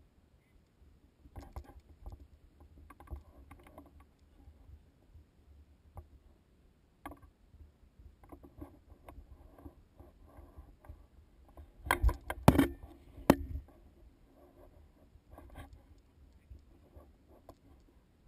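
Footsteps on rock and gravel with gear rustling, in scattered irregular steps and scuffs. About twelve seconds in comes a short cluster of loud knocks and scrapes, the loudest moment.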